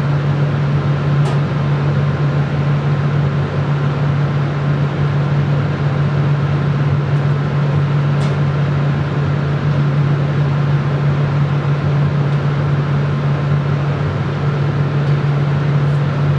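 Laboratory safety cabinet's fan running steadily: a strong low hum over a rush of air. There are a couple of faint light clicks, about a second in and about eight seconds in.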